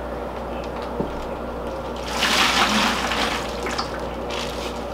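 Water poured from a cut-open plastic fish bag through a mesh net into a plastic bucket, splashing for about a second starting two seconds in.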